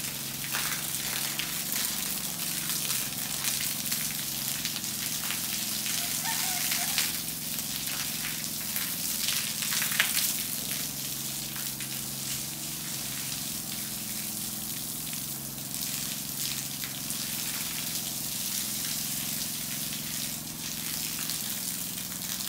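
A stream of water pouring onto a wet concrete floor and splashing in an uneven, steady spattering hiss, as the crocodile pen is hosed down for cleaning. A steady low hum runs underneath.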